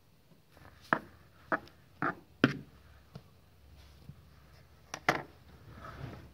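Handling noises while working with bread dough: about six sharp knocks and taps in the first five seconds, then a soft rustle as a cloth is handled near the end.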